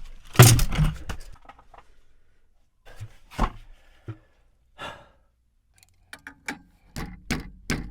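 A heavy sigh in the first second, then scattered knocks and a run of short clicks and taps from hands and tools working on household plumbing pipes.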